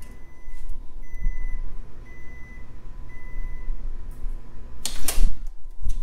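GE Profile Advantium oven-microwave finishing its timed cycle: the running hum cuts off, then the end-of-cycle signal beeps four times, about a second apart. About five seconds in, the door is pulled open with a loud clunk.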